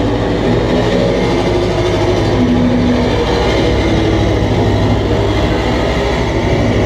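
Live harsh noise / power electronics set played loud through a venue PA: a dense, steady wall of distorted noise with a heavy low rumble and faint held tones drifting through the middle.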